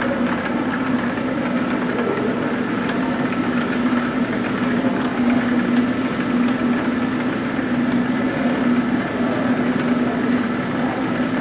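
1850s New Haven lathe running belt-driven off a motor-powered line shaft: a steady mechanical hum with a faint higher whine and light ticking from the turning pulleys and belts.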